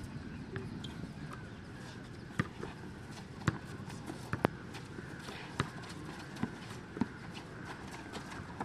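Basketball bouncing on a court: sharp single bounces, irregular and roughly a second apart.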